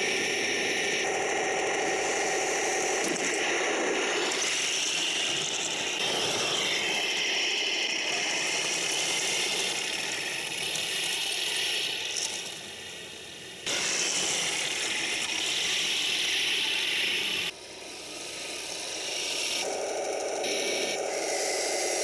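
Taigen Panther 1/16 RC tank driving: the simulated engine sound from its onboard speaker, over the whir of its metal gearboxes and the running of its metal tracks. The sound is steady apart from two short drops in level partway through.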